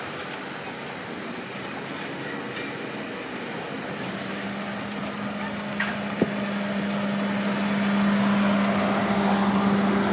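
Ainokaze Toyama Railway train approaching a level crossing: a rumble and a steady low hum that grow louder over several seconds.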